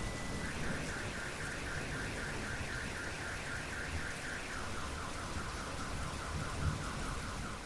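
Steady rain with a car alarm sounding over it: a fast run of repeated chirps that steps down to a lower pitch about halfway through, then stops near the end.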